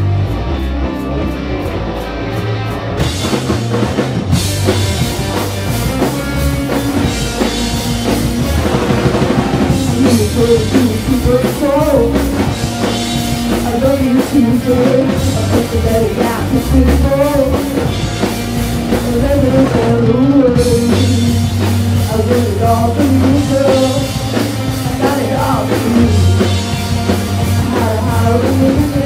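Rock music: guitar at first, with drums coming in about three seconds in, then a voice singing over the full band from about ten seconds in.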